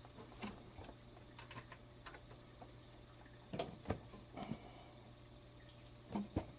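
Several faint, scattered clicks and knocks of metal parts being handled, as a desktop power supply is shifted into line with the screw holes of the PC case, over a low steady hum.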